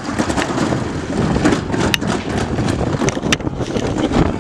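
Toboggan sled speeding down a steel trough track: a continuous rolling rumble with scattered rattles and clicks.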